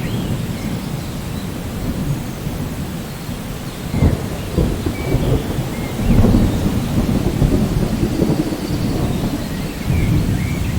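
Rain falling steadily under low, rolling thunder. A sharper clap of thunder comes about four seconds in, and the rumble swells again from about six seconds.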